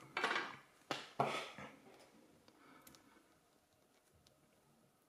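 Hands and metal tweezers handling small brass lock pins and parts on a pin tray: a couple of brief rustles and a sharp click in the first two seconds, then a few faint light clicks.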